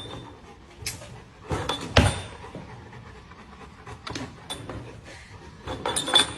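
Scattered knocks and thumps with a few light clicks, the loudest about two seconds in and a quick cluster near the end.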